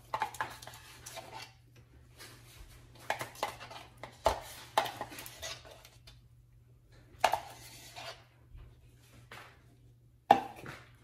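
A metal spoon scraping and knocking against a plastic tub of soft cheese and an aluminium foil pan as the cheese is scooped out and dolloped onto a lasagna, in five short bursts of clicks and scrapes with pauses between. The sharpest knock comes near the end.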